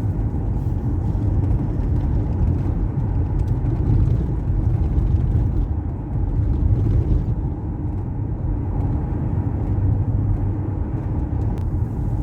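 A car driving along a road, heard from inside the cabin: a steady low engine and tyre rumble that holds an even level throughout.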